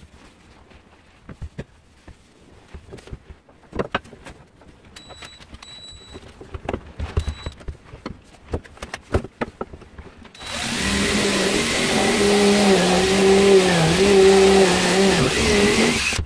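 Light knocks and clicks of a wooden handle and steel blade being handled and fitted together on a workbench, then a DeWalt 18V cordless drill starts about ten seconds in, running steadily as it drills a hole at the socket where the bill hook's blade meets its oak handle, its pitch dipping briefly under load near the end.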